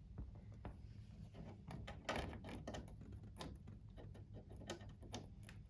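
Faint, scattered clicks and light knocks of small plastic RC crawler parts being handled on a workbench, over a low steady hum. A cluster of louder knocks comes about two seconds in.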